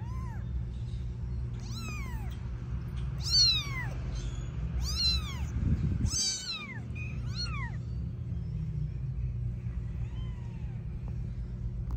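Young F5 Savannah kittens mewing: a string of short, high calls, each rising and falling in pitch, about one every second or two and fainter near the end. A steady low hum runs underneath.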